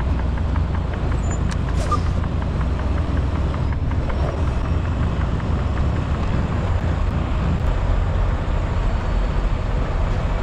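Semi-truck's diesel engine running at low revs as the tractor-trailer creeps forward during docking, a steady low rumble heard from inside the cab.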